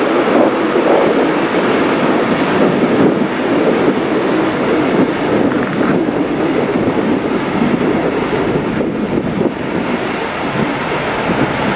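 Freight train running along the far riverbank, a steady rolling rumble of wheels on rails heard across the water.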